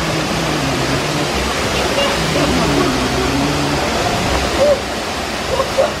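Waterfall pouring into a pool below it, a loud, steady rush of water.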